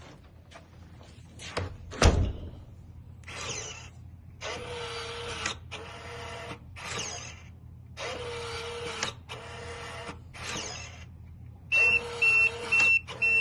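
Electronic keypad deadbolt's motor driving the bolt in repeated short whirring runs, after a sharp knock about two seconds in, then rapid high beeping near the end. The bolt is failing to throw fully against the door strike, so the lock keeps cycling and does not lock.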